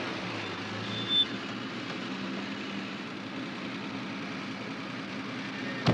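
Steady motor-vehicle noise as a Mercedes-Benz saloon taxi pulls up, with a brief high squeal about a second in and a sharp knock at the very end.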